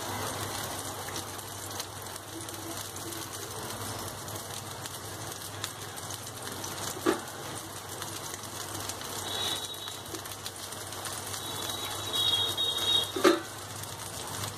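Paneer tikka skewers sizzling gently in oil on a nonstick tava over a medium gas flame, with a metal spoon clinking against the pan twice, the second time the loudest, as oil is spooned over them. A few faint high chirps come in the second half.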